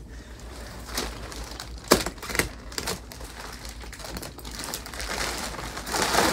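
Thin plastic wrapping crinkling and rustling as it is pulled off a rolled memory-foam mattress, with a few sharp crackles and a louder spell of rustling near the end.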